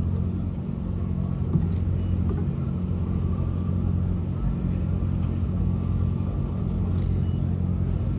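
A steady low hum with rumble, made of several even low tones that hold unchanged throughout.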